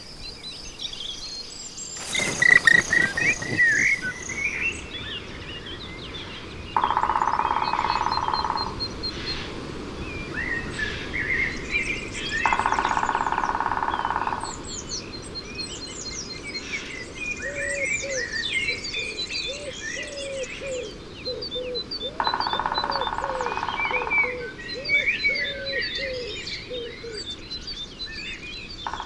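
Black woodpecker drumming on a tree trunk in fast rolls of about two seconds, three times, over a chorus of songbirds: a common blackbird's fluty song and the repeated notes of a great tit. A loud short burst of noise comes about two seconds in.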